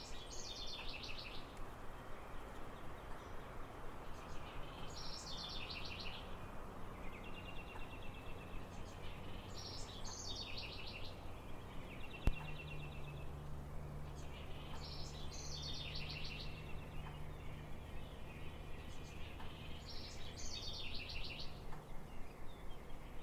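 A songbird singing the same short phrase about every five seconds, each a quick run of notes sliding down from high to lower. A steady low hum runs underneath, and a single sharp click falls about halfway through.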